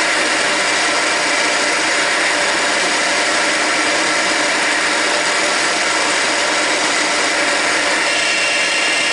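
Drill bit in a machine spindle drilling a small hole into a steel hex nut: a steady motor whine over the hiss of cutting, at an even level throughout.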